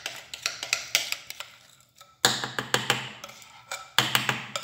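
A spoon tapping and scraping against a mixing bowl as thick cake batter is scraped out into a cake pan: a rapid series of sharp taps, with a short lull about halfway through.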